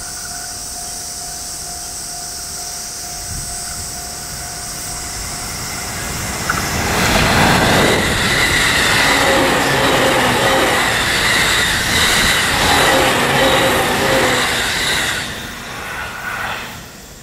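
JR East E531 series electric commuter train passing close at speed: loud rolling and rushing noise of wheels on rail with a steady whine, starting suddenly about six seconds in and dying away near the end. Before that, steadier and quieter rail noise of the train approaching at a distance.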